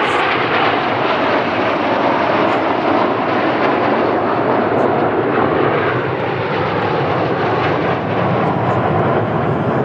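Several BAE Hawk T1 jet trainers flying a low display pass, their jet engines making a loud, steady rushing noise.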